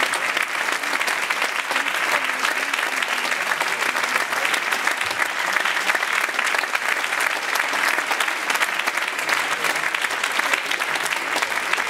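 Theatre audience applauding, a dense, steady clapping that holds at the same level throughout.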